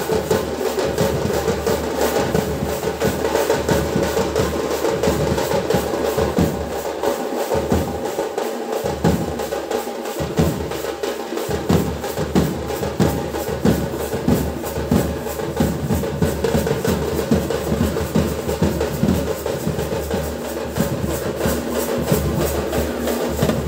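Procession drums beaten in a fast, steady rhythm, the strokes coming several a second without a break.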